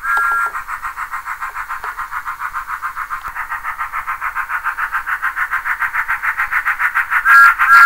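Bachmann OO gauge Thomas the Tank Engine model's sound decoder playing rapid steam chuffs, about six a second, as the locomotive runs. A short two-tone whistle sounds at the start and twice near the end.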